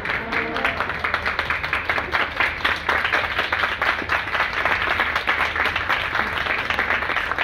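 Audience and choir applauding with dense, steady clapping. The choir's last sung note ends within the first second, as the clapping takes over.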